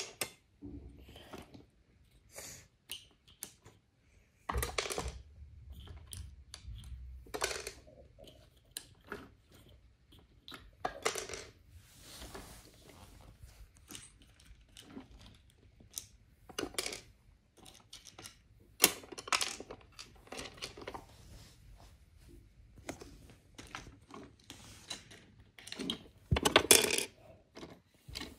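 Wooden Brio toy trains and track pieces clicking and knocking as they are handled and pushed along, in irregular taps with a few louder knocks, the loudest near the end.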